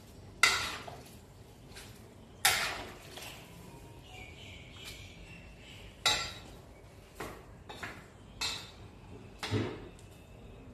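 Metal skimmer ladle knocking and scraping against the inside of a large kazan of cooked pilaf, in about seven sharp clinks with short ringing tails; the loudest come about half a second and two and a half seconds in, and a quicker run of lighter knocks follows later.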